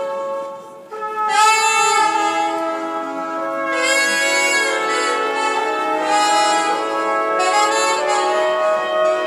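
Instrumental music with brass: sustained chords that dip briefly under a second in, then return with loud accented brass chords about every two seconds.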